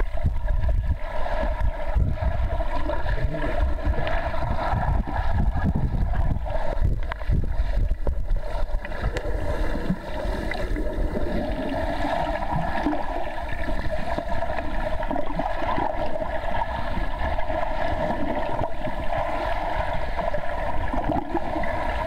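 Underwater sound of a swimming pool picked up by a submerged camera: a steady muffled rush and low rumble of the water, with the churning of a swimmer's arm strokes and kicks passing close by.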